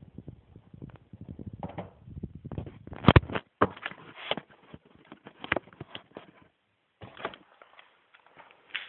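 A run of clicks, knocks and snaps from a spring-action Colt MK IV BB pistol being cocked and fired, the loudest snap about three seconds in.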